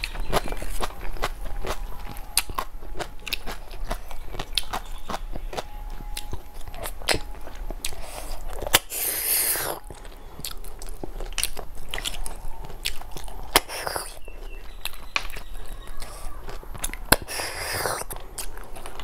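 Wet mouth sounds of eating snail curry by hand: frequent sharp smacking clicks, and twice (about nine seconds in and near the end) a longer sucking slurp as a snail is drawn out of its shell.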